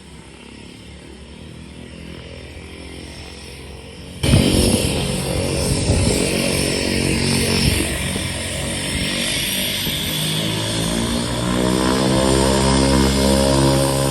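Small propeller airplane's engine running. A low hum for about four seconds is followed by a sudden jump to loud engine and propeller noise, with the pitch climbing over the last few seconds as the engine speeds up.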